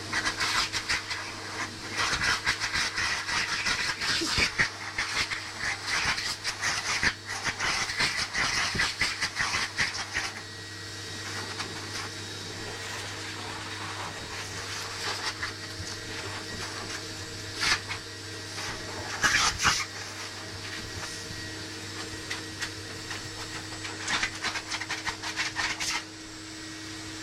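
Groomer's pet dryer blowing with a steady motor hum and a hiss of rushing air. The air comes in loud, uneven gusts for the first ten seconds and in a few short spells later on.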